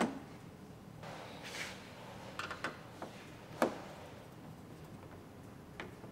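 Faint plastic clicks and a brief rub as a car door handle's rear cap is pushed into place and a screwdriver is set into its screw in the door jamb. There is one sharper click a little past halfway, over a low steady hum.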